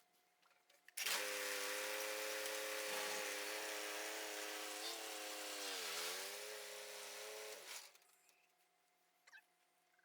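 An electric power tool's motor switches on, runs steadily for about seven seconds with a high whine and hiss, dips in pitch briefly as if put under load near the end, then switches off abruptly.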